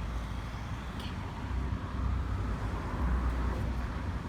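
Outdoor street background noise: a low rumble, like road traffic, that swells a couple of times.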